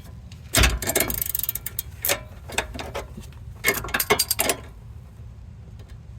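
Ratcheting wrench clicking in several short runs as the nut on a sway bar end link stud is tightened.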